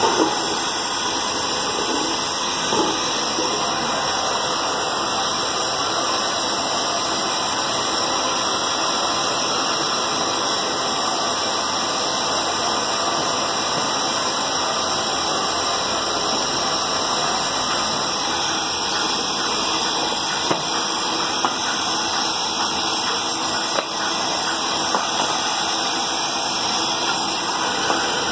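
Gas welding torch flame burning with a steady hiss while brass is heated, with a few faint knocks now and then.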